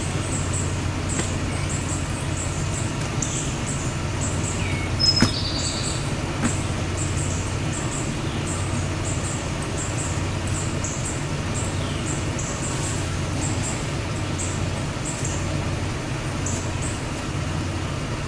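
Toyota Tundra pickup idling steadily in park, a low even hum throughout, with birds chirping and a sharp click about five seconds in.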